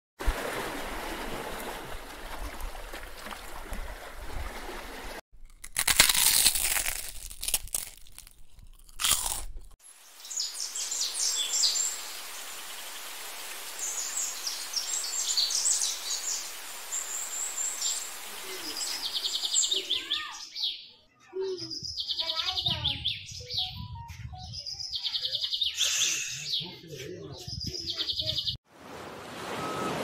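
A rough, noisy rumble with a few sharp bursts for the first several seconds. Then birds chirp and twitter in quick, high, repeated calls through the rest, with voices beneath near the end.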